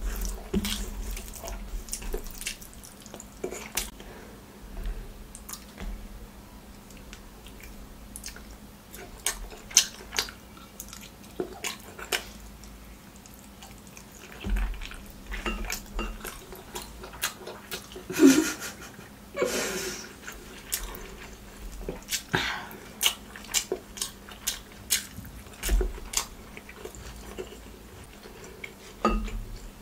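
Close-up eating sounds: irregular wet, sticky clicks and smacks from chewing mouthfuls of rice and mutton curry and from fingers mixing rice into curry, with a louder, longer stretch about 18 seconds in.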